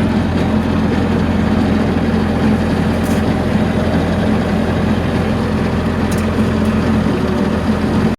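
Engine of a heavy machine running steadily at a constant speed, cutting off abruptly at the end.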